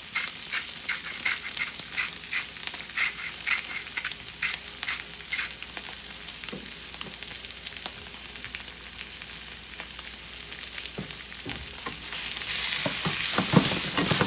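Onions, garlic and artichoke hearts sizzling in olive oil and butter in a frying pan, with a run of short rhythmic scrapes over the first few seconds. The sizzle grows louder near the end.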